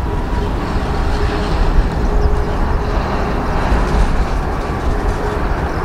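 Finnair Airbus A350's Rolls-Royce Trent XWB engines at takeoff thrust as it climbs out: a loud, steady jet roar with a couple of faint steady tones running through it, the type's distinctive engine sound.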